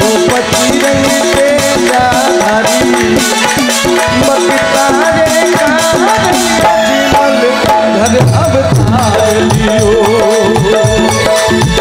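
Live Rajasthani folk bhajan music: harmonium and keyboard melody over dholak drum and rattling percussion, with the singer's voice in places. A deeper pitched part joins about eight seconds in.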